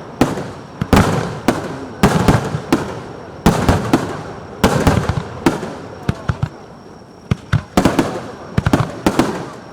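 Aerial firework shells bursting one after another, about one a second, each a sharp bang that dies away in a rolling echo, with quick crackles in between.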